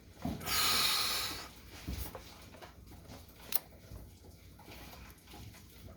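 A loud, breathy exhale lasting about a second, starting about half a second in, then faint clicks and scrapes from a tubing cutter being handled on the water pipe, with one sharper click a little after the middle.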